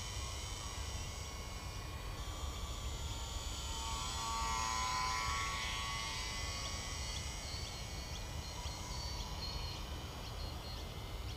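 Small electric motor and propeller of a lightweight foam RC slow-flier droning as the plane flies past, growing louder about halfway through as it comes closest, over a steady low rumble.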